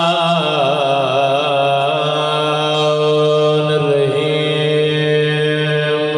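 A man's voice chanting a long drawn-out melodic line into a microphone, as a zakir does when reciting verses at a majlis. The pitch wavers ornamentally in the first couple of seconds, then settles into long held notes.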